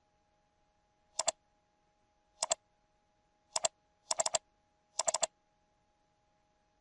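Computer mouse button clicking in five short groups, the later ones quick double-clicks, over a faint steady tone.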